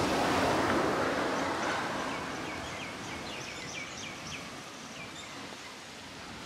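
A broad rushing noise swells and fades over the first two seconds, then a bird gives a quick run of short, high chirps lasting about two seconds.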